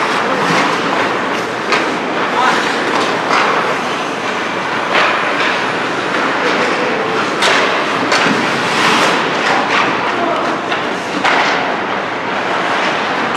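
Ice hockey practice: steady scraping of skates on ice, with frequent sharp clacks of sticks and pucks and players' voices mixed in.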